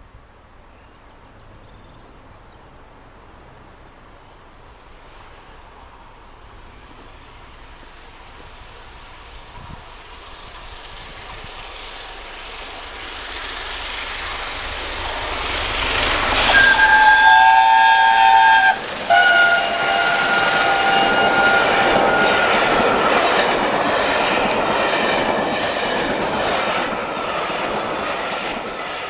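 LNER Peppercorn A1 Pacific steam locomotive 60163 Tornado approaching at speed and growing steadily louder, then sounding its chime whistle in two blasts as it comes past, the second pitched lower as it goes by. Its coaches then rumble and clatter past over the rail joints, fading near the end.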